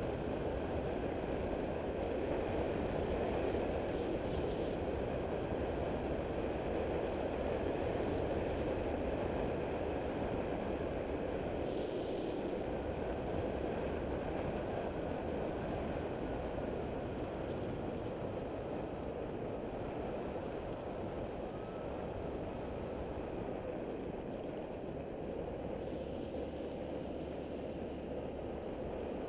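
Taotao CY150 scooter riding at town speed: its engine runs steadily under a constant rush of wind over the microphone, easing a little near the end.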